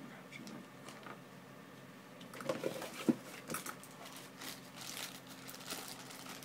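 Hands working on small plastic headset parts with a tool: a run of light clicks and rustles starting about two and a half seconds in, with one sharper click near the middle.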